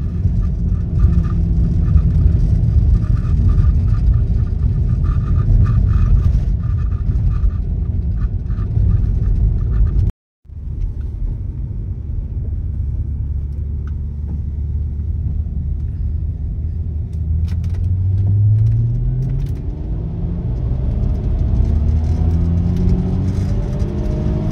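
Audi 2.7 V6 biturbo engine and road noise heard from inside the cabin at speed. The sound cuts out for a moment about ten seconds in. In the second half the engine revs climb, drop back briefly, then climb again under hard acceleration.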